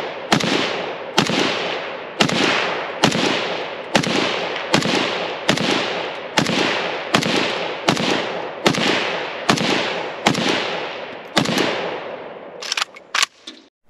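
Milled AK Type III rifle in 7.62×39 mm, a semi-automatic build on Russian parts, fired in steady slow fire. About fourteen shots come a little under one a second, each with a long ringing echo. A few fainter sharp clicks follow near the end.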